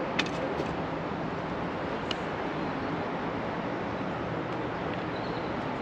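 Steady rushing noise of wind and surf at the pier, with a couple of light clicks about a quarter second in and about two seconds in.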